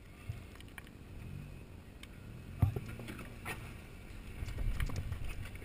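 Jeep Wrangler JK crawling over a rocky ledge at low speed: a low engine rumble with rocks knocking and crunching under the tyres, the sharpest knock about two and a half seconds in, and the engine pulling harder near the end.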